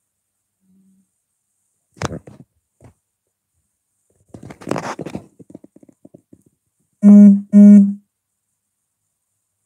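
Two loud, steady tones of the same low pitch, each about half a second, one right after the other. Before them, a single knock and a short stretch of rustling and light ticking.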